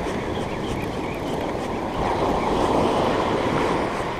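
Ocean surf washing up the beach, with wind rumbling on the microphone. The wash swells louder about halfway through.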